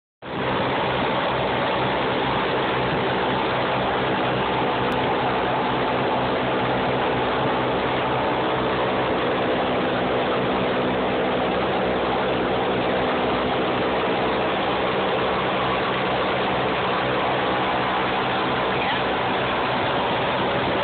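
Blimp's propeller engines droning steadily, heard inside the gondola cabin, under a rushing noise of air.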